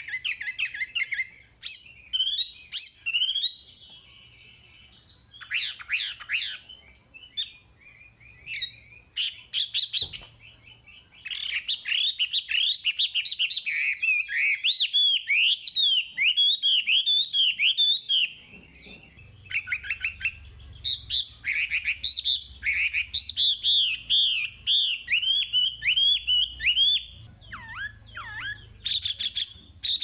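Chinese hwamei (wambi) in full song: rapid runs of repeated whistled notes and varied, quickly changing phrases, broken by a few short pauses, over a faint low hum.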